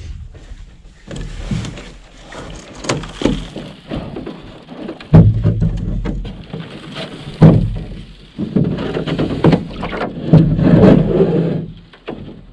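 Thumps and knocks of a canoe hull being handled, with scraping between them. The two loudest thumps come about five and seven and a half seconds in, each followed by a low ringing hum.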